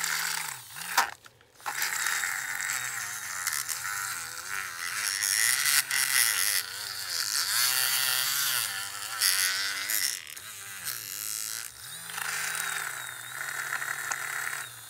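Small battery-powered hand mixer, the drink-mixer kind, whirring as it stirs a cup of glitter nail polish, its pitch wavering as it works through the thick liquid. It cuts out briefly about a second in, then runs on.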